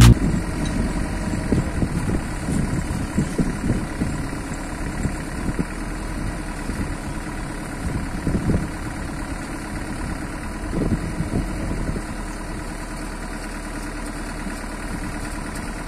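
Truck-mounted crane's truck engine running at idle, a steady low rumble with a few brief louder swells, the clearest about eight and a half and eleven seconds in.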